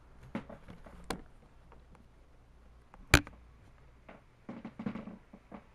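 Handling noise from the camera being touched and adjusted: scattered clicks and knocks. The loudest is one sharp click about three seconds in, followed by a cluster of softer knocks and rustles near the end.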